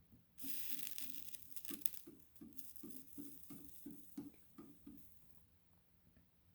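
Hand work on a battery pack as the cell groups are glued together: a scraping hiss, then about a dozen quick rasping strokes, about three a second, that stop shortly before the end.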